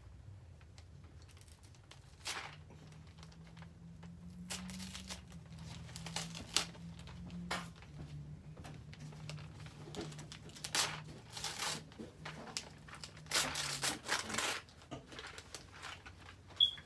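Gift wrapping paper crinkling and being torn off a present, in irregular rips that come thickest late on. A faint steady low hum runs underneath.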